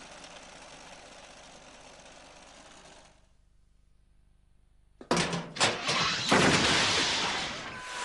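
Cartoon sound effects: a steady hiss that stops about three seconds in, then after a short pause a sudden run of loud knocks and crashing noise.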